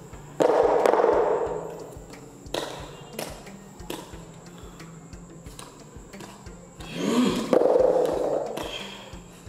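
Film soundtrack for a fight standoff: a low pulse of about two beats a second under loud cinematic impact hits. One hit comes just after the start and dies away over about a second and a half, a shorter one follows about two and a half seconds in, and a swell near the seven-second mark rises into a second big hit.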